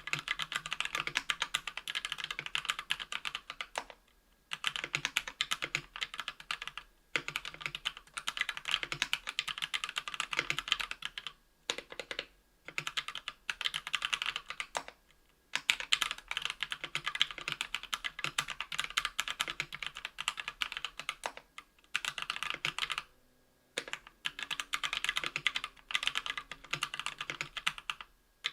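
Fast typing on a KBDfans Tofu 60% aluminium keyboard with lubed Kailh BOX Red linear switches on an aluminium plate, under Cherry-profile PBT keycaps. A dense run of keystroke clicks comes in bursts of a few seconds, with brief pauses between them.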